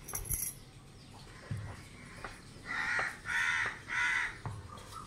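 A crow cawing three times in quick succession, harsh calls a little under half a second each, about two and a half seconds in.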